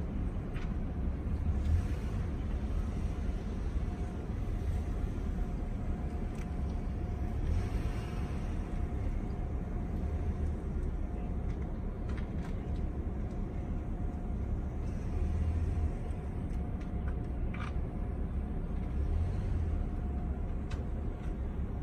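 Outdoor harbour ambience: a steady low rumble, with a faint steady hum through the middle of it and a few small clicks.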